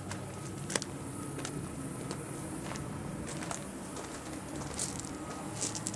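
Footsteps crunching on gravel in scattered, irregular clicks, over a steady low hum.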